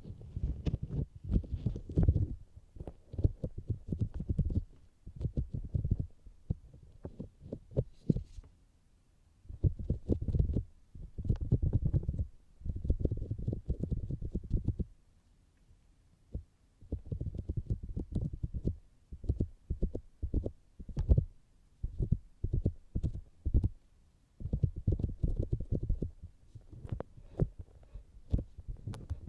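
Rapid muffled tapping on the outer ear of a binaural microphone, heard as low thuds. The taps come in runs of a few seconds each, with brief pauses about a third of the way in, around the middle and near the end.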